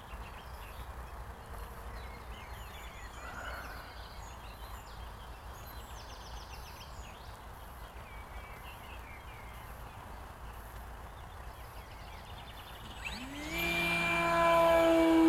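Steady outdoor wind noise with faint bird chirps. Near the end, the electric motor and propeller of a Carbon-Z Cessna 150 model plane come in loudly, rising in pitch and then holding a steady whine.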